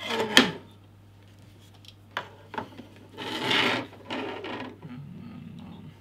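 Clicks and a scraping rub of Ethernet cables and a small plastic cable tester being handled and plugged in on a desk. A cluster of sharp clicks comes at the start, two single clicks follow about two seconds in, then a longer scrape and a few more clicks.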